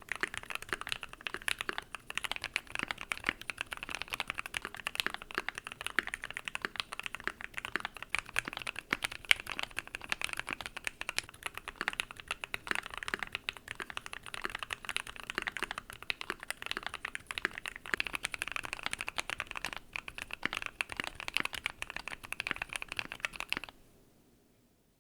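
Typing on a Keychron Q1 mechanical keyboard fitted with an FR4 plate, Gateron Black Ink V2 linear switches and PBT keycaps: a fast, continuous stream of keystrokes that stops about a second before the end.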